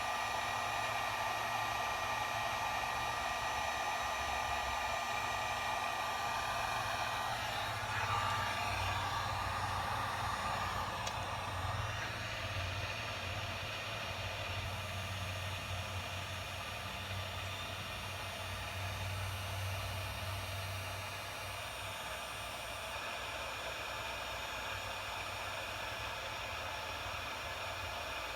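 Heat gun blowing steadily while shrinking heat-shrink insulation over crimped wire connectors. Its faint whine changes about eight seconds in and the blowing runs on a little quieter.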